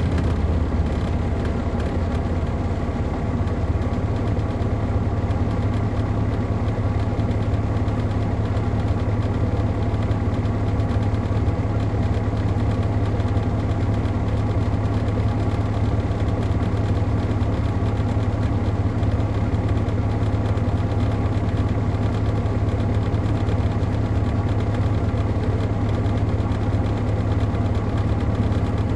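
Caterpillar C13 ACERT diesel engine of an MCI D4500CL coach idling steadily, heard from inside the bus.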